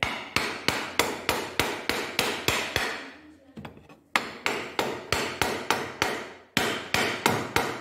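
Hammer blows on the end of a long wooden plank braced against the metal body of a Renault 1.5 dCi K9K EGR valve. There are three runs of light knocks, about three a second, with a short pause between them. The knocks turn the stuck valve and work it loose from its seat.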